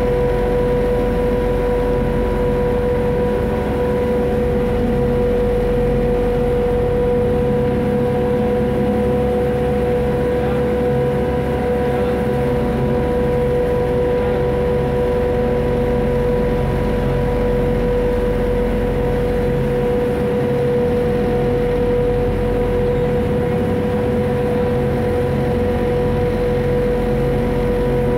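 Friendship boat's engine running steadily under way: a constant drone with a steady whine over it.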